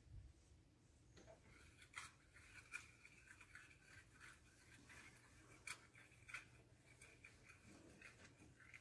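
Faint scrubbing on a pickup truck's hood: scratchy rubbing with a few light clicks, near silence overall.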